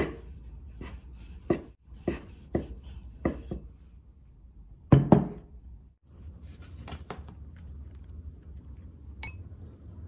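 Rolling pin knocking against a countertop as a ball of dough is flattened: a run of sharp knocks about every half second, then a louder double knock about five seconds in. Later come a few light clinks of a metal scoop in a bowl of coconut filling.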